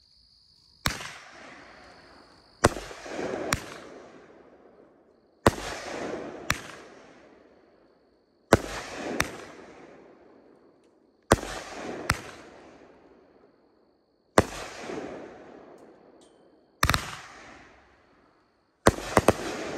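Angry Fireflies 16-shot 500 g firework cake firing shot by shot, one every two to three seconds. Each shot is a sharp bang, often followed by a second pop, then a hissing, crackling spray of sparks that fades over a couple of seconds. Near the end three shots go off in quick succession.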